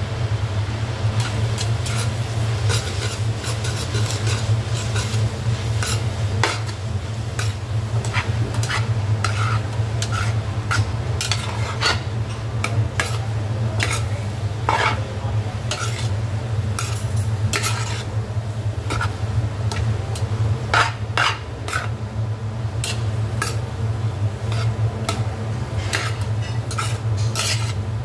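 A long metal spoon stirring and tossing spaghetti in a large stainless steel pot, with many sharp clinks and scrapes of metal on metal as it strikes the pot's sides. A steady low hum runs underneath.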